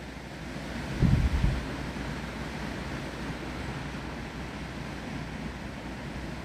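Steady hiss of wind and rain through trees. About a second in, a gust buffets the microphone with a brief low rumble.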